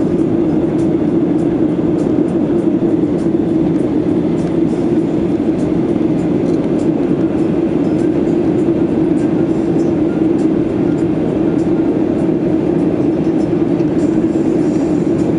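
Steady drone of a Boeing 737-800's CFM56-7B jet engines and rushing air, heard from inside the passenger cabin, with a strong low hum and faint light ticks over it.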